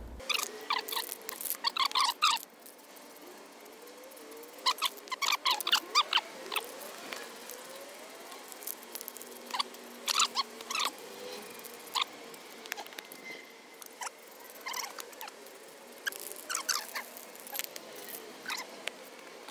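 Aerosol spray-paint can being shaken, its mixing ball rattling inside the metal can in bursts of quick, ringing clinks, several times with pauses between.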